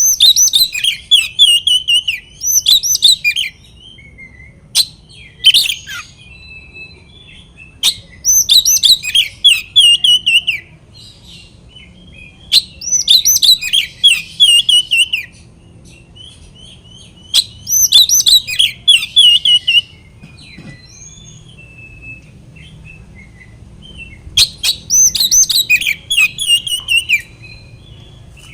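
Oriental magpie-robin (kacer) singing loud, rapid phrases of high whistles and chatters. The song comes in bursts of two to three seconds with pauses of a few seconds between them.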